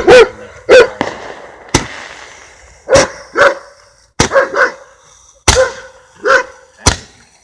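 Dog barking repeatedly: about a dozen loud barks in uneven groups of one to three. There is one sharp crack a little under two seconds in.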